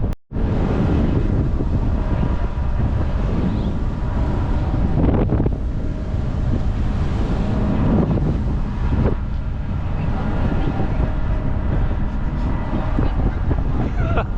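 Wind buffeting the microphone over the steady drone of a ferry's engines, with a brief drop-out right at the start.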